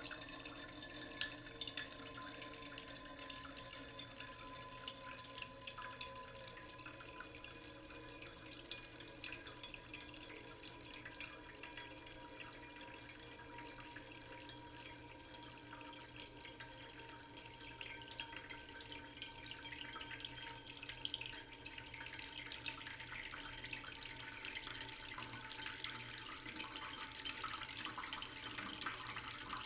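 Steady water sound with many small drips and splashes, like water running or moving in a sink or pot.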